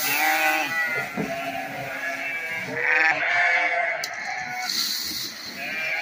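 A flock of sheep bleating, many overlapping calls from ewes and lambs at feeding time as corn is brought to the trough.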